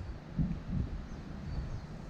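Wind buffeting the microphone outdoors: uneven low rumbling gusts, strongest just after the start and again a little before the middle.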